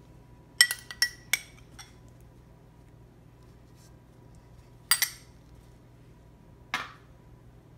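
Metal utensil clinking against a small glass bowl while herb paste is scraped out of it: three quick clinks about half a second in, another about five seconds in, and a duller knock near the end.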